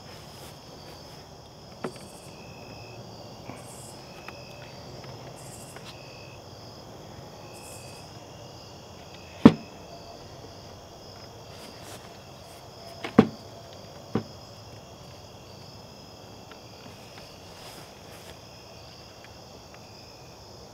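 A few sharp knocks as a large RC model airplane fuselage is set into and shifted on a wooden stand's cradles, loudest about nine seconds in, with two more around thirteen to fourteen seconds. Insects chirp steadily in the background.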